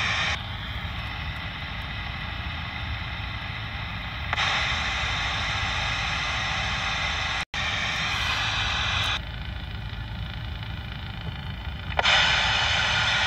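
CB radio hiss from the receiver, stepping abruptly louder and softer several times with a split-second dropout about seven seconds in, over the steady low rumble of a moving vehicle.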